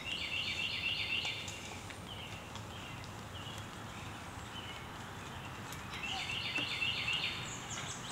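A songbird singing: two bursts of a quick, repeated high chirping phrase, one at the start and one about six seconds in, with a few single chirps in between.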